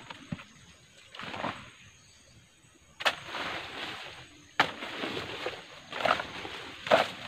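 A machete chopping through vines and brush, each sharp chop followed by rustling leaves. There are three strong chops, about 3, 4.5 and 7 seconds in, with softer swishes and rustles between them.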